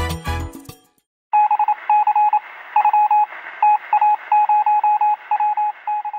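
Background music ends just under a second in. After a brief gap, a single electronic beep tone keys on and off in an irregular pattern of short and longer pulses, like Morse code, over a steady radio-like hiss with a thin, narrow-band sound.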